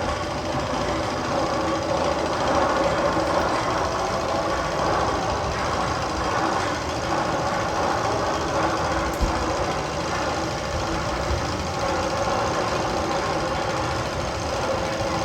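A rumbling, knocking machine-engine sound effect played over loudspeakers in a coaster tunnel, running steadily with no pauses.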